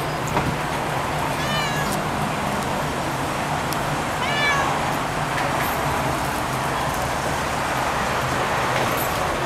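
Tortoiseshell cat meowing twice, two short calls about three seconds apart, over steady background traffic noise.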